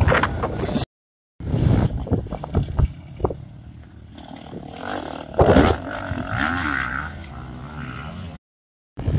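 Dirt bike engines on a motocross track, revving and changing pitch as the bikes ride past at a distance. The sound cuts to dead silence briefly about a second in and again near the end, where clips are joined.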